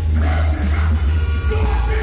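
Reggae dub plate played loud through a sound system: a heavy, booming bass line under a singer's voice.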